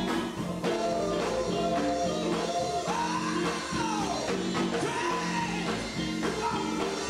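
Live gospel music: a lead singer sings into a microphone, holding long, sliding notes over a band with electric guitar and drums playing a steady beat.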